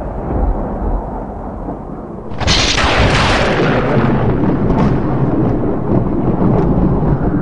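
Thunder sound effect over wind: a low rumble, then a sharp thunderclap about two and a half seconds in that fades into a long rumble.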